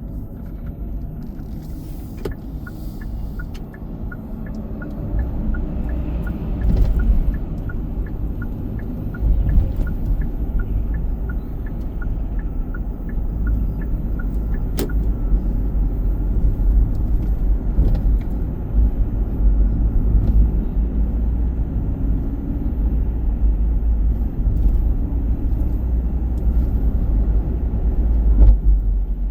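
Car interior driving noise: a steady low rumble of road and engine while under way. A turn-signal indicator ticks about twice a second from about two seconds in until about fifteen seconds in.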